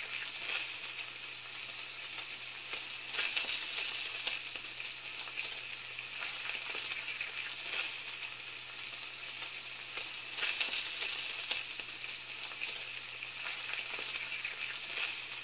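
Food sizzling in a hot pan: a steady crackling hiss with a few louder spits now and then.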